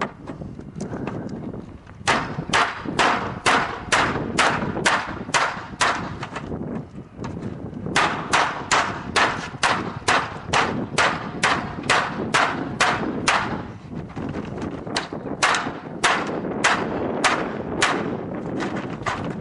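Roller garage door running, its slats clacking in an even rhythm of about three a second over a low rumble, in three runs with short pauses between.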